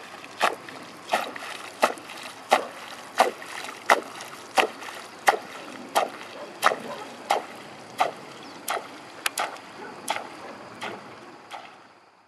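Yara Devassa propeller topwater lure (14 cm, 35 g) worked across the water surface in a steady rhythm of sharp splashing chops, about one and a half a second, each rod twitch making the lure's propeller kick up water. The chops fade out near the end.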